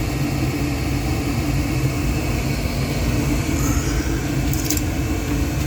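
Gas furnace running with a steady low hum and rushing noise while its blower motor fails to start, the fault that tripped the flame rollout switch. A few light clicks near the end.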